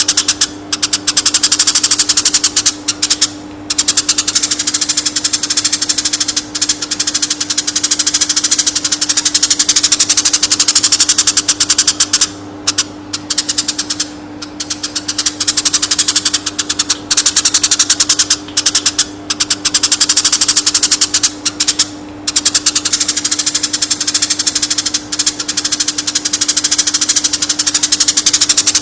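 Eurasian tree sparrows chirping in a fast, dense, near-continuous stream of sharp chirps, broken by a few brief pauses, over a steady low hum.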